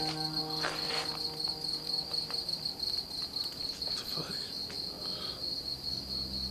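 Crickets chirping in a steady, high, pulsing trill. A low droning hum of several steady tones fades out over the first two seconds.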